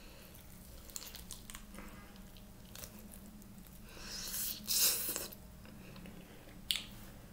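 Eating a grilled, barbecue-sauced chicken wing with skin: scattered small mouth clicks while chewing, and a louder bite into the wing about four seconds in.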